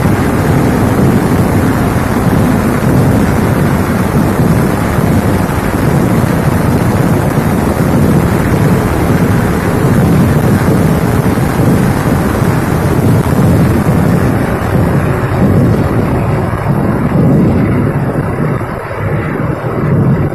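Kerala temple fireworks (vedikettu): a dense chain of firecrackers going off in rapid succession, merging into one continuous loud rumble that thins a little near the end.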